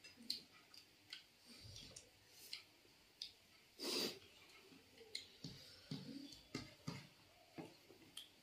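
Faint sounds of eating by hand: scattered small clicks and taps of fingers and food against plates, with mouth sounds of chewing. One louder, slightly longer sound comes about four seconds in.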